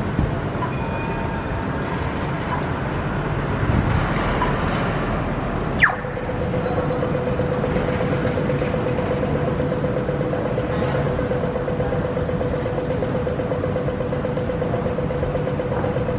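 Steady road traffic rumble, with a short sharp falling squeal about six seconds in, after which a steady droning hum comes in.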